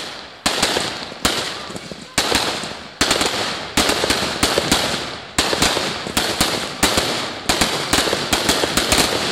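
Aerial fireworks firing in quick succession, about one to two shots a second. Each is a sharp bang followed by a fading crackle as the red and white stars burst.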